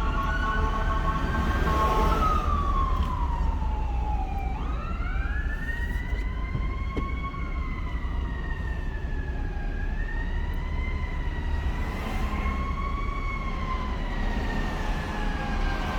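A siren wailing, its pitch sweeping slowly up and down every few seconds, over the steady low rumble of the car being driven.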